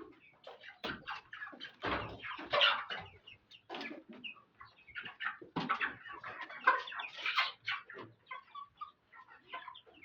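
A flock of young chickens about six weeks old clucking and peeping together, many short calls overlapping without pause.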